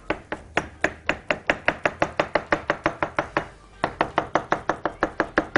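Large kitchen knife rapidly chopping roasted eggplant on a wooden cutting board, about seven even strokes a second, pausing briefly a little past three seconds in, as the flesh is chopped fine by hand.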